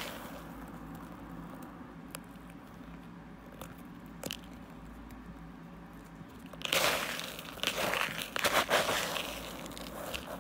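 Fingers digging into and squeezing a bowl of coarse white mothball crystals, the grains grinding together. A few faint ticks come first, then a run of loud crunching from about two-thirds of the way in.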